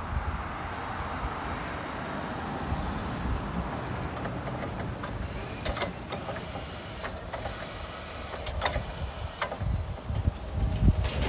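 Cat EP30K-PAC electric counterbalance forklift running and driving, its electric motors whining steadily. A high hiss for a couple of seconds near the start, and a few sharp clicks in the middle.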